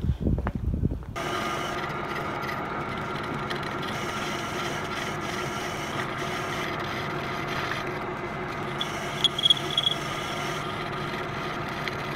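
Metal lathe turning down the threaded steel bottom-bracket shell of a bicycle frame: a steady motor and spindle hum with the scrape of the cutting tool, starting abruptly about a second in after some handling noise. A brief high squeal rings out about nine seconds in.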